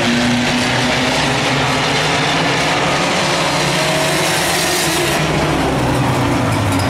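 Engines of several claimer race cars running together as they circle the oval, a steady mix of engine notes.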